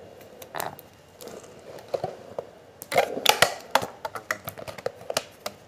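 Rustling and sharp clicks as an N95 mask's elastic straps are pulled over the head and its shell is pressed and adjusted on the face. The clicks are irregular, and there is a denser burst of rustling and clicks about three seconds in.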